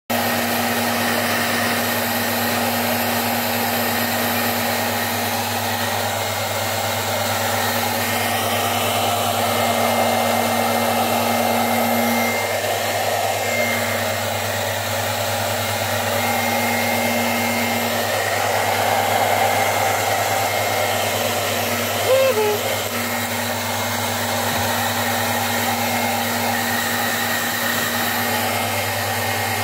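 A steady, continuous whirring drone of a blower-type motor with a low hum underneath. About two-thirds of the way through there is one brief squeak that rises and falls in pitch.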